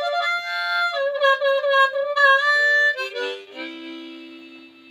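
Harmonica playing a short melodic phrase, often two notes together, then settling on a held two-note chord that slowly fades out.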